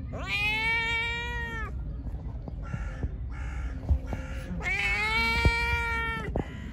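Tabby cat meowing twice, two long loud meows of about a second and a half each that rise in pitch at the start and then hold steady, a few seconds apart.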